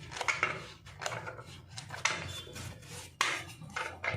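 Irregular rubbing and scraping strokes as the oil sump of a Jack F4 industrial sewing machine is wiped and its remaining dirty oil pushed toward the drain hole, with a sharp click about three seconds in.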